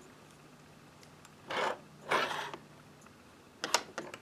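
A metal patio-door loop lock being swung up and down: two short scraping sounds, then a few light metal clicks near the end.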